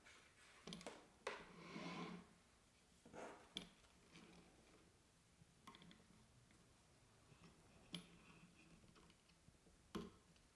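Near silence with faint handling sounds: a few light clicks and short rustles as a timing belt is threaded through a carbon-fibre camera slider and its carriage is moved along the rails.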